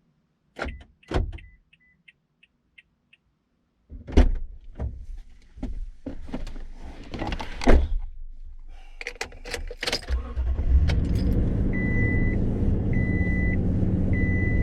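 Sounds of getting into a vehicle: door thuds, a short run of quick chime ticks, then clunks and handling noises. About ten seconds in the engine starts and settles into a steady idle, while a high warning chime beeps three times.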